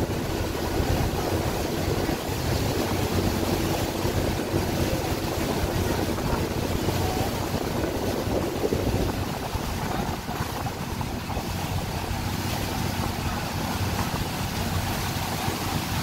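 A river passenger boat under way: its engine drones steadily while water rushes past the hull and wind buffets the microphone.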